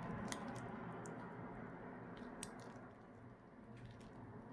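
Faint handling of smartphone parts during reassembly, with a small click about a third of a second in and another about two and a half seconds in, over a low steady hum.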